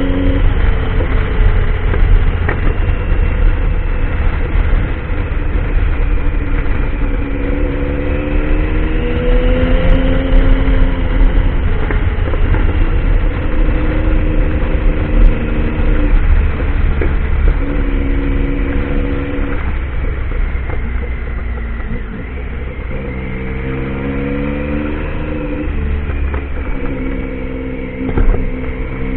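Triumph Tiger motorcycle engine revving up and down over and over as it is ridden off-road, its pitch rising and falling in repeated waves. A heavy low rumble runs underneath.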